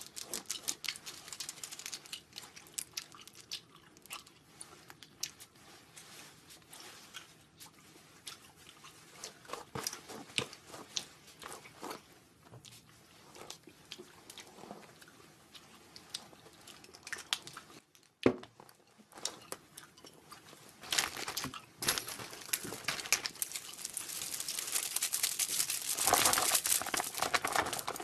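Close-up grooming and handling sounds: a hairbrush scratching and crackling through long hair, plastic cosmetic pouches crinkling and clothing rustling, with scattered clicks. A sharp click comes about two-thirds through, and the crinkly rustling grows denser and louder near the end.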